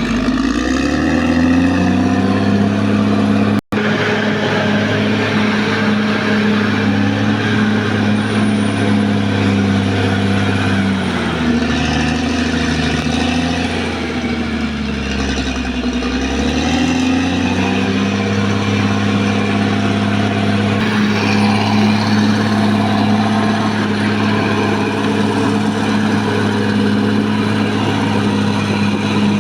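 Caterpillar D6R XL bulldozer's diesel engine running loud and steady. Its note climbs near the start, sags about eleven seconds in and climbs back about six seconds later, with a momentary break in the sound a few seconds in.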